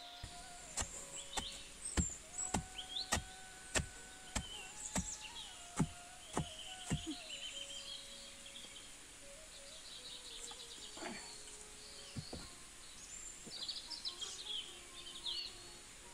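Long wooden pestle pounding dried sesame seeds in a hollowed-log wooden mortar: a steady run of dull thuds, about one every 0.6 s, for the first seven seconds or so, then only a couple more strikes. Birds chirp throughout.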